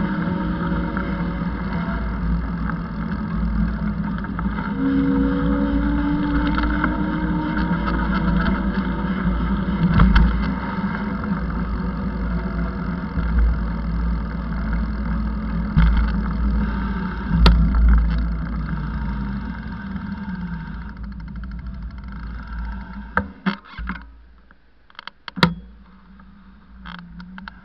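Riding noise heard from a bicycle-mounted camera: steady wind rumble on the microphone mixed with car traffic passing on the road alongside. Near the end it drops away as the bike comes to a stop, leaving a few sharp knocks.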